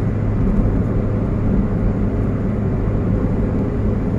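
Steady road and engine noise inside a car's cabin as it drives along a highway, a constant low rumble with no sudden changes.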